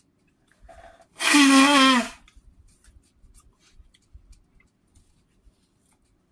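A man sneezes loudly once, a voiced sneeze of just under a second, with a short intake just before it, in a run of sneezes that has him reaching for a tissue.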